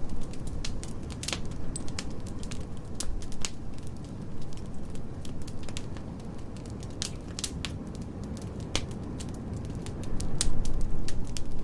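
Wood fire crackling in a fireplace: irregular sharp pops and snaps over a steady low rumble, which grows louder near the end.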